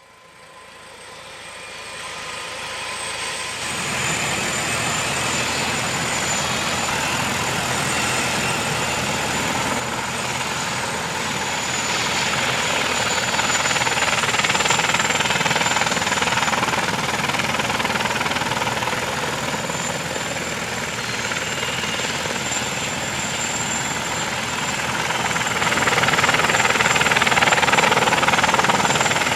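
Helicopter taking off: the rotor and engine noise builds up over the first few seconds, then runs steadily with a thin high whine, growing a little louder near the end.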